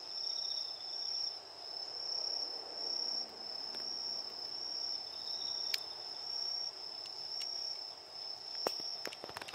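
Crickets trilling in one steady, high continuous note, with a fainter second insect chirping now and then. A few soft clicks near the end.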